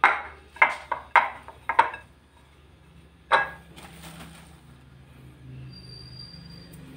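Glass baking dish of flour-coated boiled quail eggs being handled and shaken. There are four sharp knocks about half a second apart, one more a little after three seconds, then faint clicks as eggs are picked from the dish.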